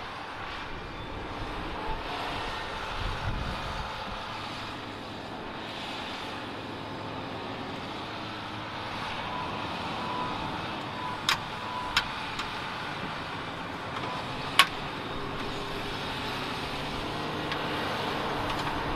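Fendt 936 Vario tractor running steadily under load as it pulls a ridger through sandy soil to form carrot beds. Three sharp clicks or knocks come in the second half, the last the loudest.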